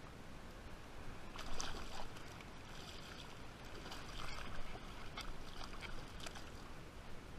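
Shallow water splashing and sloshing in irregular bursts, over a steady background of surf and wind noise.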